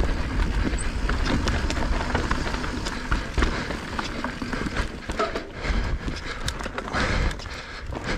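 Mountain bike descending a dirt and rocky trail: knobby tyres rolling and crunching over dirt and stones, with many small knocks and rattles from the bike over a constant low rumble.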